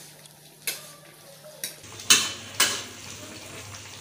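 Metal ladle stirring a boiling vegetable stew in a metal wok: about four sharp clinks and scrapes of the ladle against the pan, the loudest about two seconds in, over the faint bubbling of the boiling liquid.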